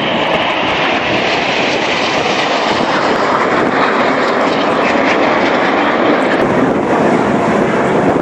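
Engine noise of the Red Arrows' BAE Hawk jets flying past in formation: a loud, steady rush with no let-up.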